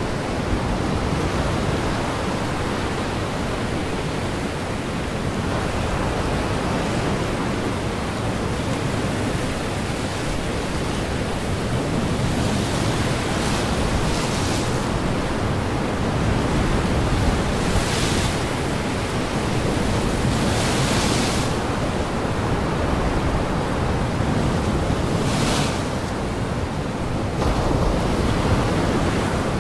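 Strong wind and surf, a steady rushing noise of waves and gusts, with four short hissing swells like breaking spray in the second half.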